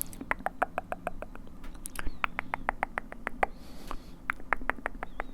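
ASMR mouth sounds close to the microphone: a rapid, uneven run of wet tongue clicks and lip smacks, several a second. A brief breathy hiss comes a little before the four-second mark.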